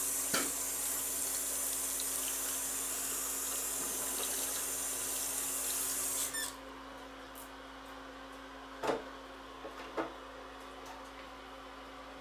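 Bathroom sink tap running into the basin after tooth brushing, shut off sharply about six seconds in. Two short knocks follow a few seconds later.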